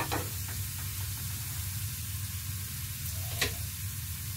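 Chopped garlic sizzling gently in hot oil in a pan, a steady hiss with a sharp crackle right at the start and another about three and a half seconds in.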